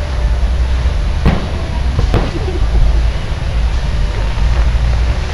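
Aerial firework shells bursting: two bangs less than a second apart, over a constant low rumble.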